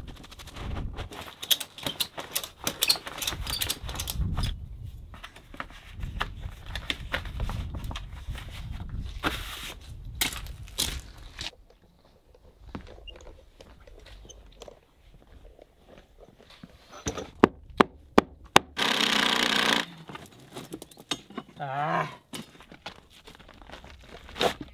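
Plastic tarp crinkling and rustling, with crunching on gravel. After a pause come a few sharp knocks, then a cordless drill running for about a second and a half, and later a shorter wavering whir.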